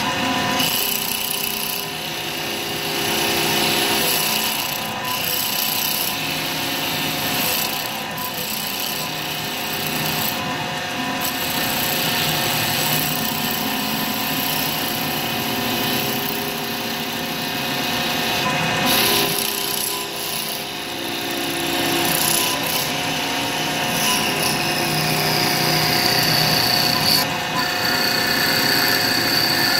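STYLECNC STL3080 mini CNC wood lathe running, its spindle turning a small wooden blank while the turret-mounted cutter shaves it, a steady machine whine mixed with the scraping of the cut. A higher steady whine sets in about three-quarters of the way through.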